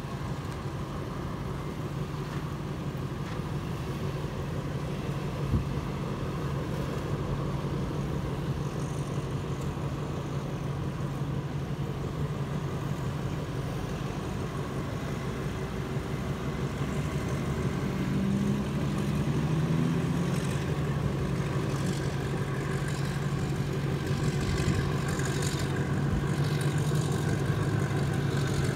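Alsthom diesel-electric locomotive running under load as it pulls a freight train out of the station: a steady low engine hum growing gradually louder as it draws nearer. A single brief knock comes about five seconds in.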